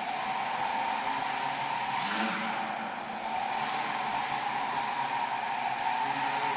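Quadcopter in flight, its four 910kv brushless motors spinning 10-inch APC propellers: a steady whirring hum with a high whine on top, swelling briefly about two seconds in.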